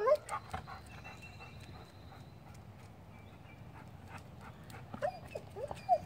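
Golden retriever whining in a few short, high whimpers about five seconds in, eager to get at a squirrel just out of its reach.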